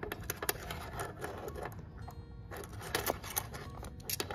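Small steel Knipex pliers handled by hand, giving irregular light clicks and taps as the jaws and handles are opened and knocked together. Faint background music runs underneath.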